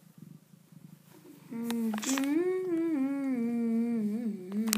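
A person humming a short, slowly wavering tune for about three seconds, starting about a second and a half in.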